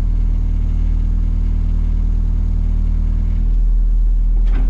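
Excavator's diesel engine running steadily with a low hum; its tone shifts slightly about three and a half seconds in.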